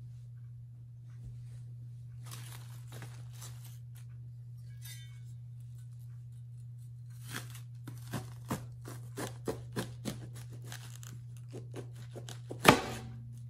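Napa cabbage being cut with a cleaver: a few soft leaf rustles, then a run of short crisp crunching cuts as the blade goes through the thick stem end. Near the end comes a single loud knock with a brief ring. A steady low hum runs underneath.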